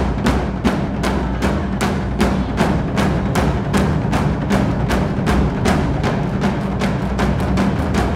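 Traditional Japanese taiko drums played in a fast, steady rhythm of about three to four strikes a second over a deep, sustained drum boom.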